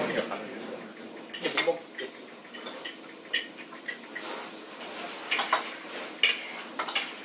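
Forks and spoons clinking and scraping against plates and bowls while people eat, in scattered, irregular clinks.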